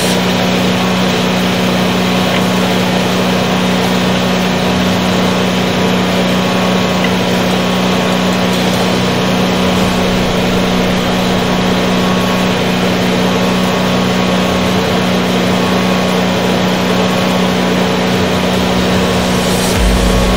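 Engine running steadily at a constant speed: a loud, even hum that does not change in pitch.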